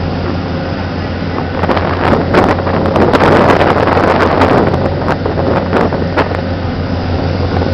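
Glass-bottom tour boat's engine running steadily at cruising speed, a low hum. From about a second and a half in, wind buffets the camcorder microphone, loudest in the middle and easing off near the end.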